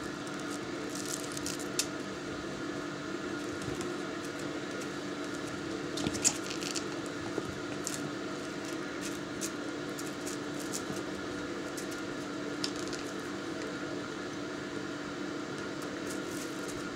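A steady hum of room noise, with scattered soft rustles and small clicks from a kitten pawing and chasing a small toy ball on a towel. The clearest click comes about six seconds in.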